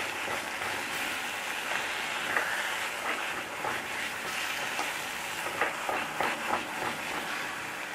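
Wooden spatula stirring and scraping thick carrot halwa around a nonstick kadai, the halwa frying in ghee underneath with a steady soft sizzle. The halwa is cooked down and smooth, near the end of cooking, with ghee starting to separate.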